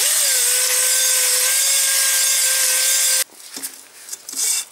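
Cylinder hone spinning inside an oiled Panhard M5-type cylinder liner, deglazing the bore with its stones at minimum arm tension. A steady whine with a scraping hiss: it starts at once, settles slightly lower in pitch as it gets going, and stops abruptly about three seconds in.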